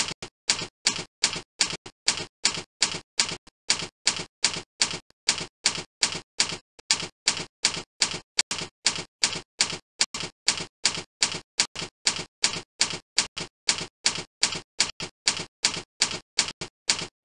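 Typing sound effect: evenly paced key clicks, about three a second.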